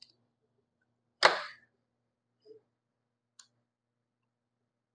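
A single sharp clack about a second in, fading quickly, followed by two faint clicks: small-tool and phone handling at a repair bench.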